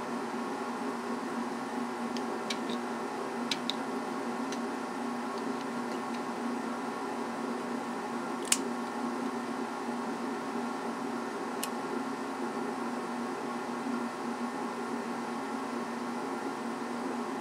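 A steady machine hum with several steady tones in it, under a few short sharp clicks of a hand tool against the opened refrigerator compressor's cylinder head and valve plate. The loudest click comes about halfway through.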